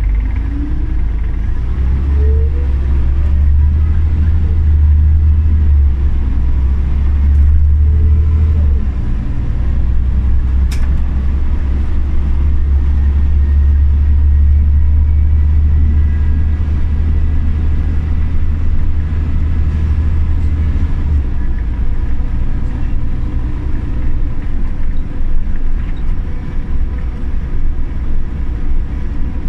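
Scania OmniCity city bus under way, heard from inside: a loud, steady low engine and drivetrain rumble that eases about two-thirds of the way through.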